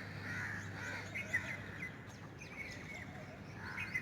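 Several birds calling and chirping in the morning, short calls repeating throughout, some harsher caw-like notes among quick chirps, over a faint low steady hum.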